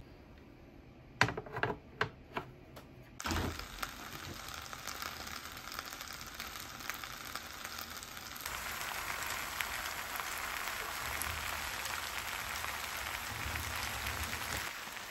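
A few sharp clicks and a knock, then bibimbap of beef, vegetables, kimchi and egg sizzling steadily in the deep pan of an Iris Ohyama electric hot plate as it heats up, the sizzle growing fuller about eight seconds in.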